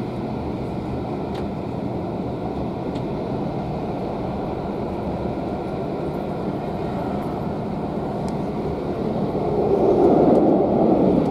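Steady rumble and rush of a moving passenger coach on the rails, heard from inside the carriage, growing louder about nine seconds in.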